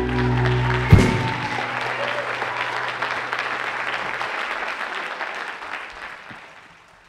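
Live band with guitars, bass, keys and drums holding its final chord, which is cut off by a sharp closing hit about a second in. Audience applause follows and dies away.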